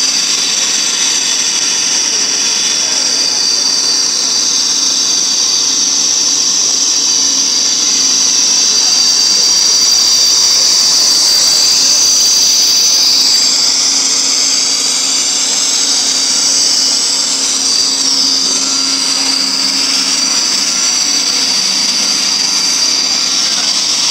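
A PP-R plastic pipe extrusion line running: the steady, high-pitched hiss and whine of its motors, fans and pumps, with a faint low hum underneath.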